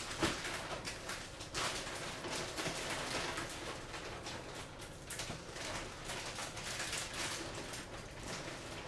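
Small clicks and rustling from hands handling a racing drone's frame, flight-controller stack and wires on a silicone work mat, with a sharp click right at the start.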